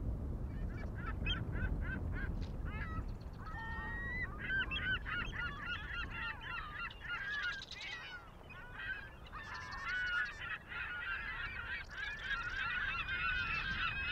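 A flock of birds calling: short, repeated pitched calls that begin under a second in and overlap more and more densely from a few seconds in, over a low wind rumble on the microphone.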